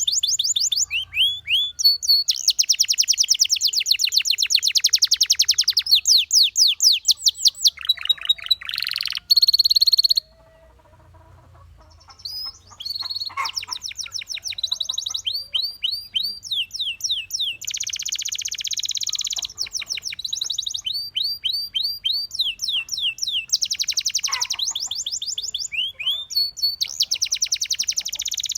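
Domestic canary singing: long, fast trills of rapidly repeated sweeping notes, one run after another, broken by a pause of about two seconds roughly a third of the way through.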